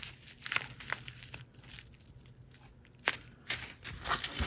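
Small plastic bags of diamond painting drills crinkling as they are handled, with scattered sharp crackles and taps; the loudest comes about three seconds in.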